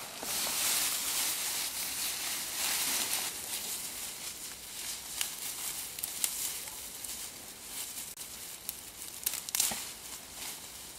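Grass and leafy weeds rustling and tearing as they are pulled up by hand, with a few sharp snaps of stems.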